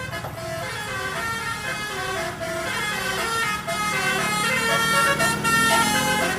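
A tour bus's telolet (basuri) musical horn playing a multi-note tune, its notes stepping from pitch to pitch, over the low running of the bus engine.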